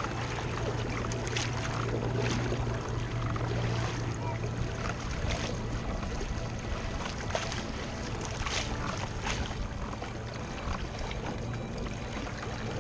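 Solar-powered outrigger canoe under way on calm sea: water rushing and splashing along the hull and outrigger floats. Under it runs a low steady hum, strongest in the first few seconds.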